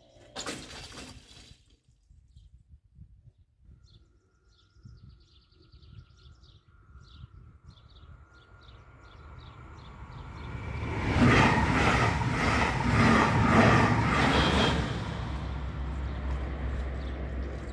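A train passing over the level crossing. Its noise builds over a few seconds and peaks for about four seconds with a rapid, even clatter of wheels over the rails, then drops to a low rumble. Faint bird chirps come before it, and there is a short rattle near the start as the full barriers settle closed.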